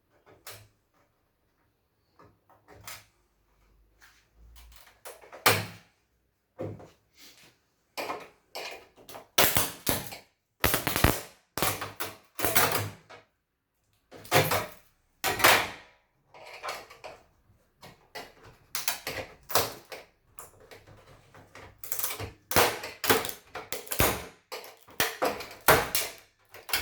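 Irregular clicks, knocks and rattles of hard parts being handled as an LG LED TV is taken apart by hand, the busiest and loudest clatter in the second half.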